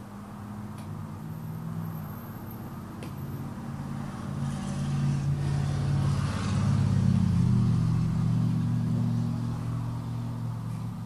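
A motor vehicle's engine rumbling, growing louder to a peak past the middle and then easing off, as of a vehicle passing close by outside.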